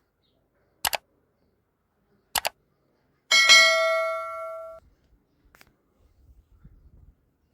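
Two sharp double knocks about a second and a half apart, then a single metallic clang that rings with several clear tones and dies away over about a second and a half.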